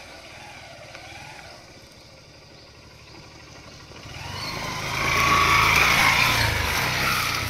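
Motorcycle engine running as the bike is ridden over a rough off-road track. About four seconds in, the engine and a rushing noise grow much louder.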